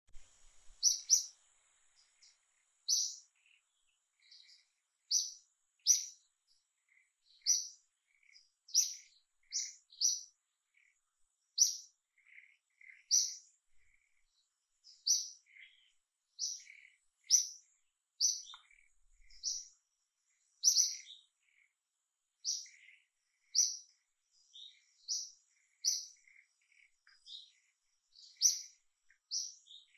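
Small bird chirping: short, high chirps at irregular intervals of about a second, with fainter, lower chirps in between.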